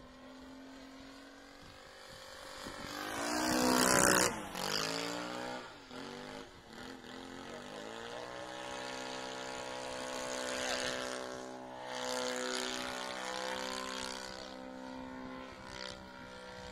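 Engine of a radio-controlled model airplane flying overhead, a droning propeller note. It is loudest as the plane passes about four seconds in, its pitch falling as it goes by, then it settles into a steady drone.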